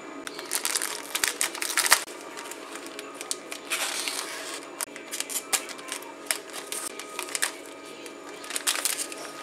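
Plastic snack-kit packaging crinkling and clicking as it is handled and cut open with scissors, with a longer crackling rustle about four seconds in. Near the end a foil lid is peeled off a plastic tray with a burst of crinkling.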